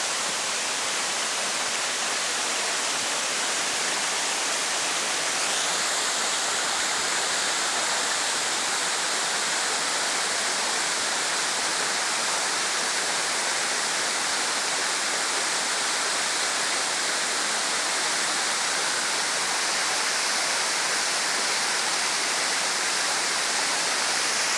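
Waterfall with water rushing steadily. About six seconds in the sound turns brighter and hissier, then holds steady.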